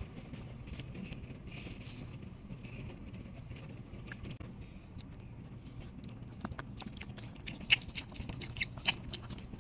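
A Chihuahua chewing tough pieces of grilled chicken heart, with scattered small wet clicks and smacks of its teeth and a few sharper ones near the end, over a steady low hum.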